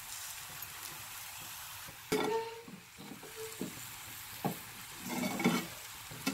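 Metal spatula stirring and scraping diced boiled potatoes in a metal kadai, over a faint steady sizzle of frying oil. The scraping strokes start about two seconds in, one with a brief metallic ring from the pan.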